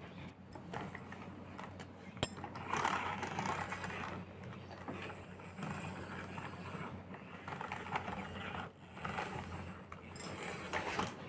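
Red plastic toy jeep pushed to and fro by a child's hand on a bedsheet, its wheels and mechanism whirring and rattling in spurts, with a sharp click about two seconds in and another near the end.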